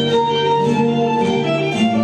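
Greek folk dance music of Asia Minor style: a fiddle and plucked string instruments playing a melody over a steady beat.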